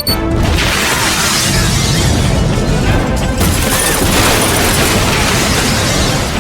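A loud explosion that starts suddenly: a sustained blast and rumble with crashing, shattering debris for about six seconds, under dramatic music.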